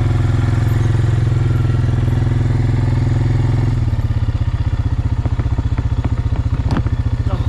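Quad bike engine running at low speed while manoeuvring through a multi-point turn on a steep track, easing off about four seconds in. A few brief knocks near the end.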